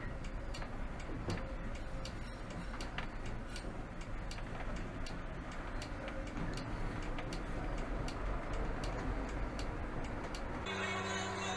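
Tram running along the street with a low rumble, under a rapid, regular ticking in the cab. Music comes in about a second before the end.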